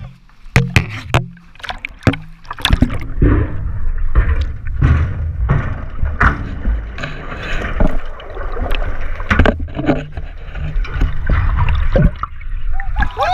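Water splashing hard around a shark cage as a shark thrashes at the surface, at first in separate sharp splashes. About two and a half seconds in it turns into a continuous muffled rushing and bubbling with a deep rumble and repeated knocks, as the camera goes underwater beside the cage.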